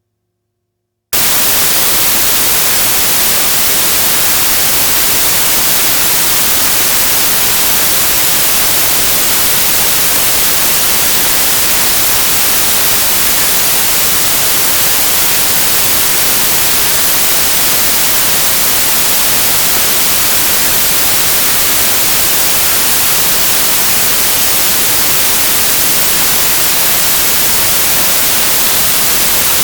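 Steady white-noise hiss, like static, starting abruptly about a second in and holding an even level throughout.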